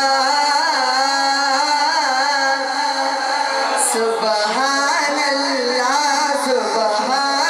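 A young man singing a naat (devotional poem) solo into a microphone, his voice gliding and bending through ornamented held notes, with no instruments.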